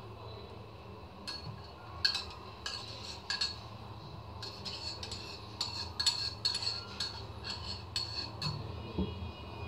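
Kitchen utensils clinking and scraping against a vessel in an irregular string of short, sharp clinks, while ginger pulp is strained through a cloth to draw out its juice.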